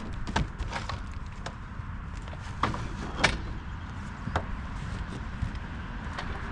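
Scattered sharp knocks and clicks, about five in all, over a steady low rumble.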